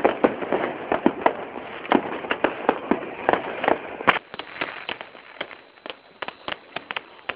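Fireworks going off in quick succession, a rapid run of bangs and crackles. About four seconds in it drops to sparser, quieter pops.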